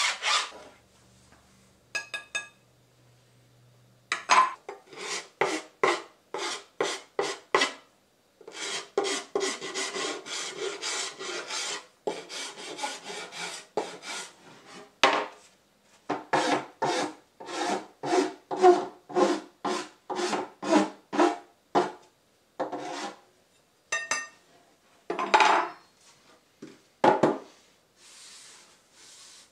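Hand file worked back and forth over a recycled synthetic decking snowskate, giving runs of rasping strokes at about two a second, broken by short pauses.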